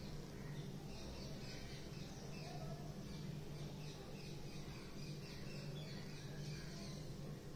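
Felt-tip marker squeaking on a whiteboard in quick repeated strokes as coil loops and lines are drawn, over a steady low hum.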